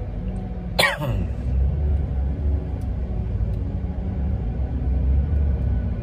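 Steady low rumble inside a 2021 Chevrolet Equinox's cabin, with a brief sound about a second in that falls quickly from high to low pitch.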